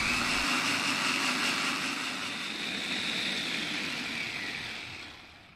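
Mitochiba electric food chopper whipping cold liquid cream toward stiff peaks, its motor running steadily with a whine, then winding down and stopping near the end as the press-down top is released.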